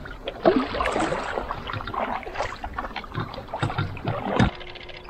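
Double-bladed paddle strokes and water splashing and lapping along a canoe's hull as it is paddled, with a louder thump about four and a half seconds in.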